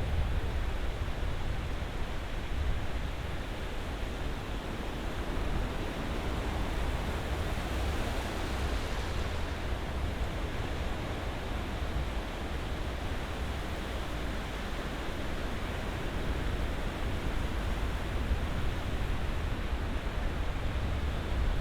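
Ocean surf washing steadily as a continuous rushing noise, with a wave swelling and breaking about eight seconds in.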